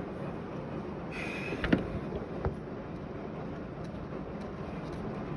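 Steady rushing of storm wind, with wind buffeting the microphone. A short hiss and two sharp clicks come between about one and two and a half seconds in.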